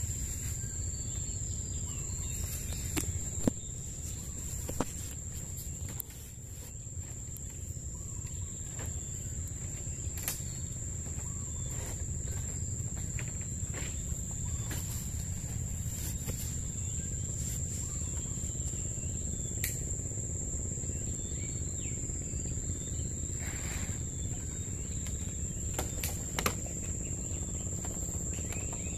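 An insect trilling in one steady, unbroken high tone over a low background rumble, with a few sharp clicks scattered through.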